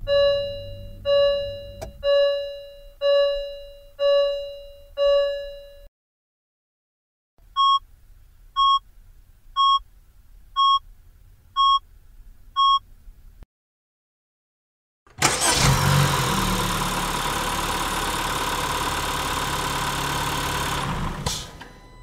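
Car sound effects in sequence: a warning chime rings six times about a second apart, each ring fading, then six short electronic beeps about a second apart. After a pause, a car engine starts and runs loudly and steadily for about six seconds before cutting off near the end.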